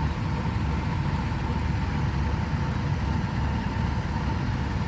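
Kubota DC-105X combine harvester's diesel engine running steadily while harvesting rice, with a steady high whine over the low engine sound.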